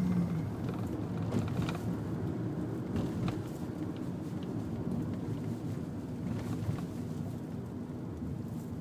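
Car driving slowly, heard from inside the cabin: a steady low engine and tyre noise, with a few light knocks about two to three seconds in.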